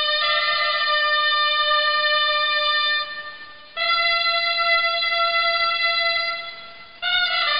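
Grallas, Catalan double-reed shawms, playing three long held notes in turn, each fading away before the next begins.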